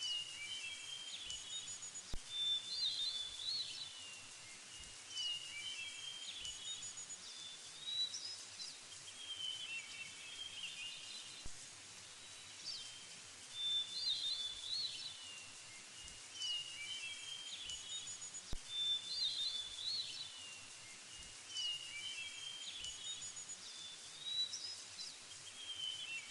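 Songbirds singing: short chirping phrases over a steady hiss, the same kinds of phrases coming back every few seconds.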